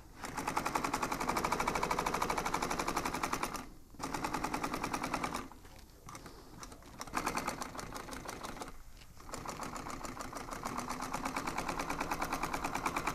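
Industrial sewing machine stitching rows of double-diamond lines through foam-backed upholstery material: a rapid, even needle rattle in several runs of one to four seconds, with short stops between them.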